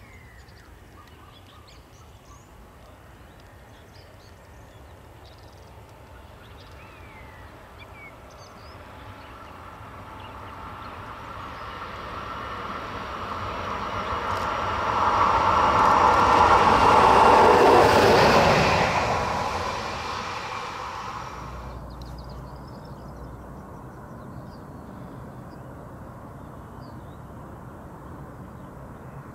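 A CRRC Bison electric locomotive running as a single engine approaches and passes at speed: wheel and rail noise with a steady high whine swells, peaks loudly about three-fifths through, then fades. The high part cuts off suddenly about three-quarters through, leaving a fainter distant rumble. Birds call faintly early on.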